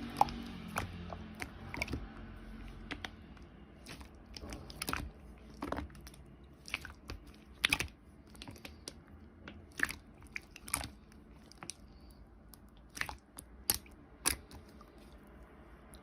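Slime being handled, giving scattered sharp crackling clicks and pops, irregular and about one or two a second.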